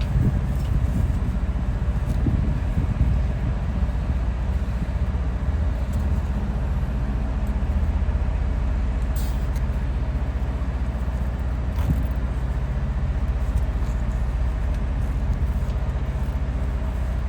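An engine idling steadily with a low, even hum, and a few faint clicks over it.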